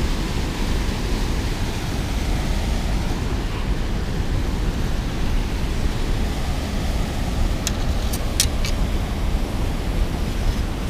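Water rushing over a dam spillway: a steady, even rush of white noise. A few sharp clicks come about eight seconds in.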